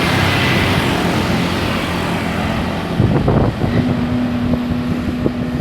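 Heavy road traffic with bus engines running and passing, one vehicle going by loudly about three seconds in, followed by a steady low tone held for about a second and a half.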